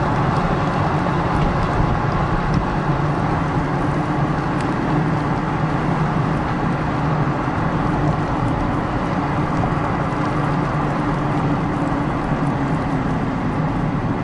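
Car driving along a road: steady engine hum and tyre and road noise.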